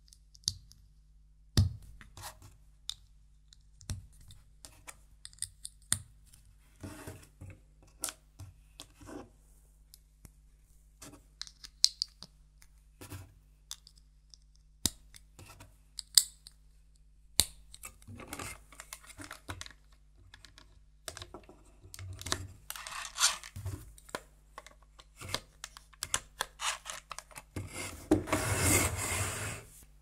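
LEGO plastic parts being handled and snapped together: scattered sharp clicks and scrapes as a rubber tyre is worked onto a wheel hub and the wheel pushed onto an axle. Near the end a louder scraping rustle lasts about a second and a half.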